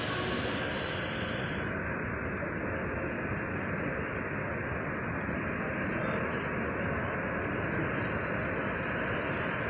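Boeing 737-800's CFM56-7B turbofans at taxi idle as the airliner taxis in to the gate, a steady engine noise heard through the terminal glass; the higher hiss fades about a second and a half in.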